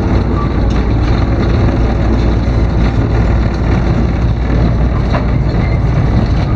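Diesel engines of a GE 44-ton switcher locomotive running steadily, heard from inside the cab as it moves: a loud, even, low drone.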